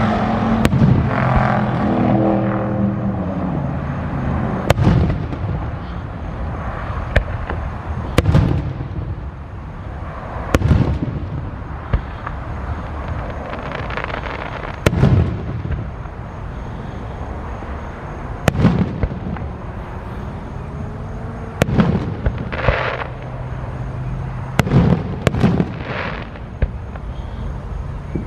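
Aerial fireworks shells bursting overhead: about a dozen sharp booms at irregular intervals, each with a short echoing tail.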